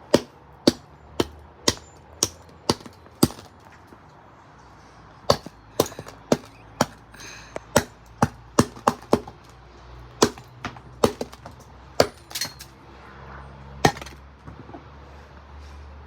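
A metal fork jabbing and striking a rock-hard frozen Starburst candy against a hard surface: a run of sharp clacks, roughly two a second, with a pause of about two seconds after the first few.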